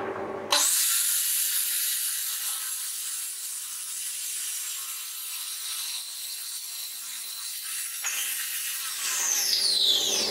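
Handheld circular saw cutting through plywood. It comes on suddenly about half a second in and runs steadily through the cut; near the end the blade spins down with a falling whine.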